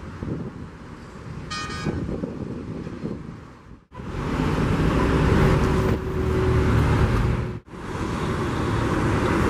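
Wind noise and distant jet engine rumble, with a short horn-like toot about one and a half seconds in. After a sudden cut about four seconds in comes louder road traffic from a congested multi-lane avenue: vehicle engines running with a steady droning note. A second abrupt cut comes shortly before the end.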